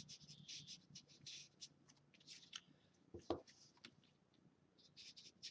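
Faint, quick scratchy strokes of a Distress Ink pad being rubbed along the edges of a chipboard box piece to distress them, with a light knock about three seconds in.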